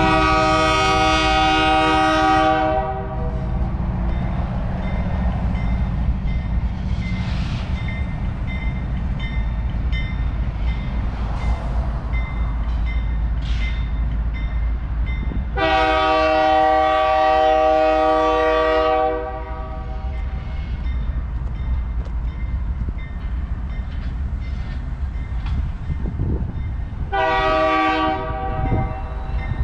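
Union Pacific diesel locomotives' air horn sounding a multi-note chord three times: a long blast at the start, another long blast about halfway through, and a shorter one near the end, over a steady low rumble.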